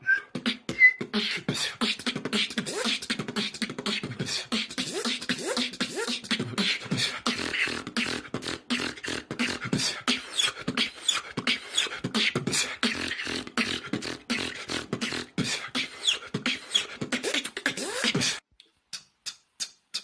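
Human beatboxing: a fast, dense run of percussive mouth sounds over a low hummed tone. It cuts off abruptly near the end, leaving a few scattered clicks.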